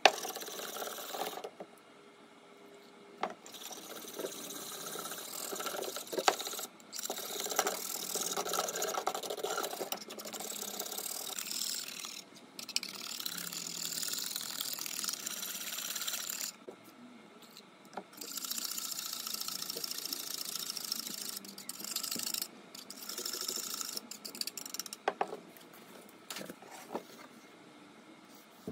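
Wire whisk beating chalk ground in a saucepan: a fast scraping rattle of the wires against the pan, in bouts of several seconds with short pauses between, and a few sharp clicks.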